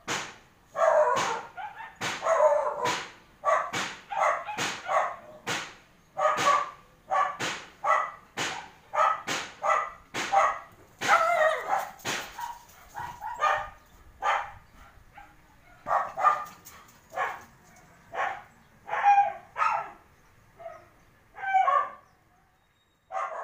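A dog barking over and over, about two barks a second, the barks spacing out after about thirteen seconds with a last few near the end.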